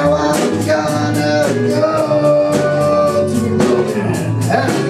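Rock band playing electric guitars over a drum kit, with long held melody notes above the beat.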